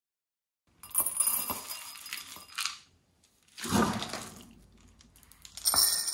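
Dry cat kibble poured from a small scoop into glass and ceramic bowls, the pellets clinking and rattling in three short pours.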